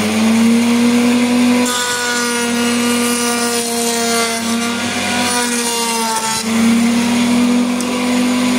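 JIB VSM50 router table's 1.5 kW motor spinning the cutter at a raised speed setting, a steady high whine. From about two seconds in to about six seconds a pine board is fed past the bit, adding a cutting hiss while the pitch dips only slightly, showing the motor barely feels the load; then it runs free again.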